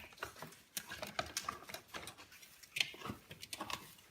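Irregular light clicks, taps and rustles, as of small objects being handled.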